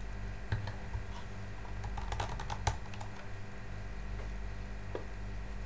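Plastic fountain nozzle and telescopic riser tube of a pond pump clicking and knocking as they are fitted together and handled: a few sharp clicks, several close together about two seconds in.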